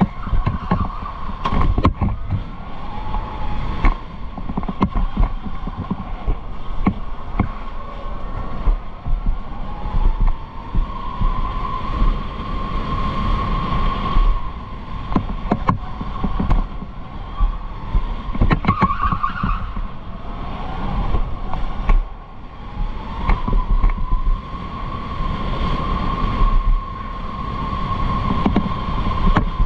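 Electric go-kart's motor whining, the pitch slowly rising and falling with speed, over heavy low rumble and frequent knocks.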